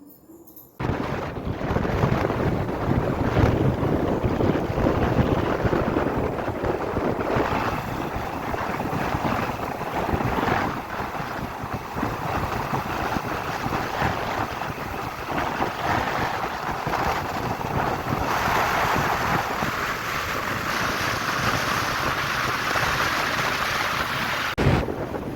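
Wind buffeting the microphone over a low, steady rumble of travel, starting suddenly about a second in.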